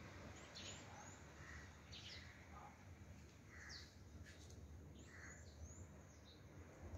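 Faint songbird calls from garden trees: a scattered string of short high chirps and quick upward whistles, coming every second or so over a low background rumble.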